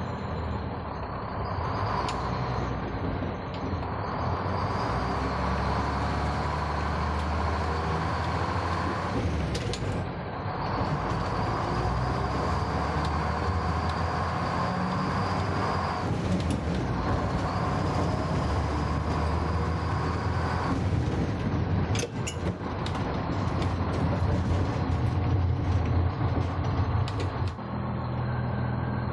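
Old tram running along its track: a steady low rumble from the wheels and drive, with a faint high whine that comes and goes and a few sharp clicks about three-quarters of the way through.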